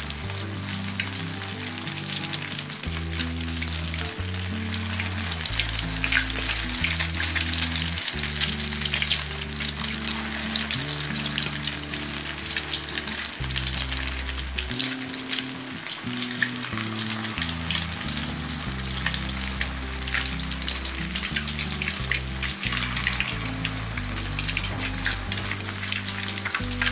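Corn-fritter batter deep-frying in plenty of hot oil in a wok, a steady sizzle full of fine crackles, as more spoonfuls of batter go into the oil.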